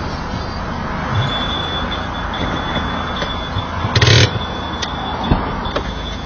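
Car-repair workshop noise: a steady rumble with a thin high whine coming in about a second in, a short loud burst of noise about four seconds in, and a few sharp clicks after it.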